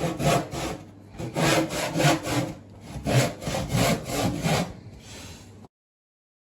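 Handsaw cutting through a thick pine scaffold board, in quick back-and-forth strokes about two to three a second. The sound cuts off suddenly near the end.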